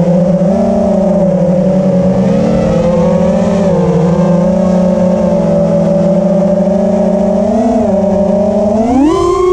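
FPV quadcopter's four EMAX ECO II 2306 1900KV motors spinning 5-inch three-blade props, heard on board: a steady buzzing whine that dips and swells slightly with throttle, then rises sharply in pitch about nine seconds in as the throttle is pushed up.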